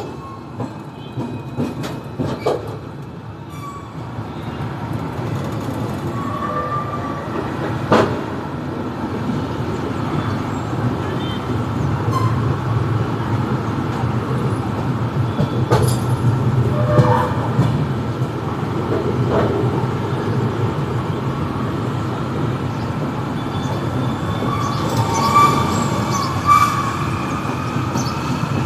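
Passenger train running on the track: a steady low rumble that slowly grows louder, sharp clicks now and then, and short squeals from the wheels, several of them near the end.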